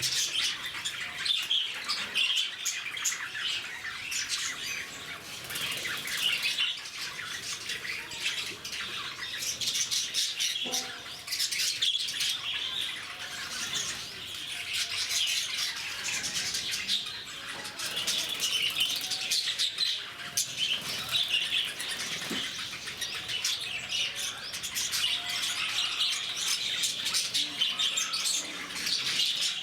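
Many lovebirds chattering at once: a continuous jumble of high-pitched chirping calls overlapping without a break.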